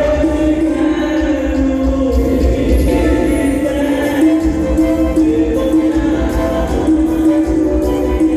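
Loud music with singing and a heavy, steady bass line, played over a large speaker-wall sound system.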